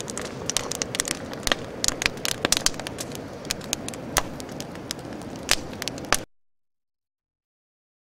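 Driftwood campfire crackling, with many sharp, irregular pops over a steady background rush. The sound cuts off abruptly about six seconds in, leaving dead silence.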